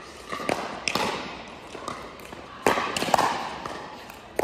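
Pickleball paddles striking a hard plastic ball during a rally on an indoor court: a series of sharp pops, each with a short echo, the loudest pair a little past halfway.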